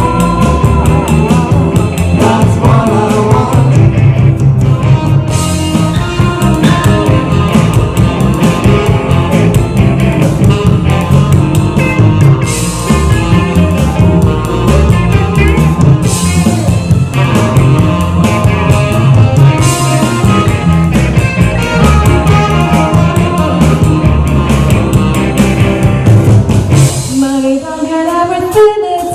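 Live rock band playing loud, with electric guitars and a steady drum beat; near the end, sliding pitched notes stand out.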